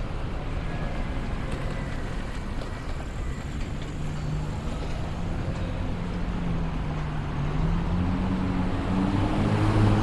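Street traffic rumble with a car engine pulling away, its tone rising in pitch and getting louder through the second half.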